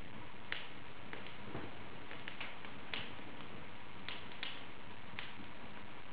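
Wood fire burning in an open fireplace: a steady hiss with irregular sharp crackles and pops, about a dozen scattered through it.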